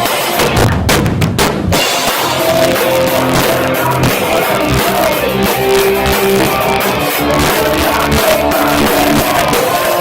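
Live heavy rock band playing loud, drums to the fore, with a few short stops in the playing about a second in. The sound is badly distorted, recorded on a cheap phone's microphone.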